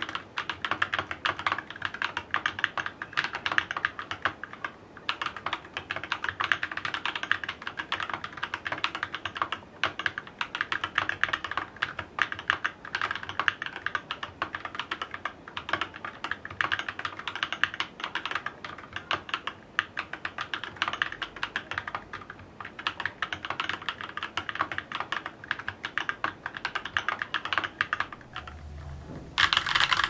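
Fast, continuous typing on a Keychron K6 mechanical keyboard with Everglide Dark Jade tactile switches lubed with Tribosys 3204, switch films, foam mod and PBT keycaps, giving a dense, muted clacking of keystrokes. Near the end a louder, brighter clatter of the same keyboard unmodded begins.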